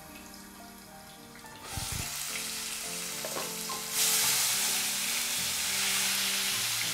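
Diced tomato sizzling in hot oil with mustard and cumin seeds in a nonstick kadai, muffled under a glass lid at first, then louder about two seconds in and louder again about four seconds in as it is stirred with a wooden spatula. Faint background music.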